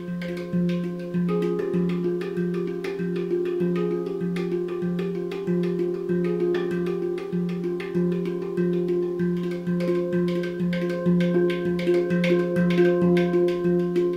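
Handpan improvisation: a low note struck evenly about twice a second under ringing higher notes, getting louder toward the end.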